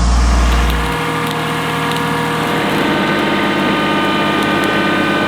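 Small tractor's engine running steadily. A deep rumble drops away about a second in, leaving the engine's even hum.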